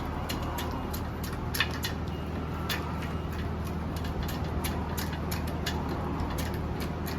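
Scattered sharp metallic clicks of a wrench working loose the lock nut on a TPMS sensor's valve stem, over a steady low hum.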